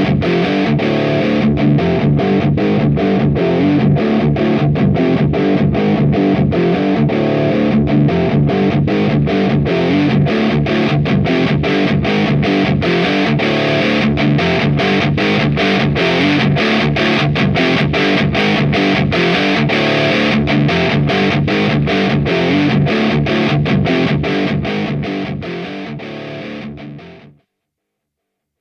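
Distorted high-gain electric guitar through an AMT Bricks R/S Lead tube preamp, playing a tight rhythmic riff of short, evenly spaced chugs. It fades over the last few seconds and stops about a second before the end.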